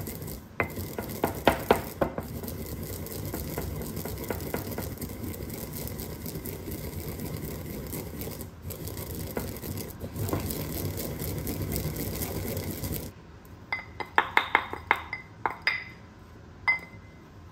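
Wooden pestle grinding sesame seeds in a ceramic grinding bowl: a steady rubbing and scraping with occasional knocks, which stops abruptly about 13 seconds in. A quick run of light clinks follows near the end.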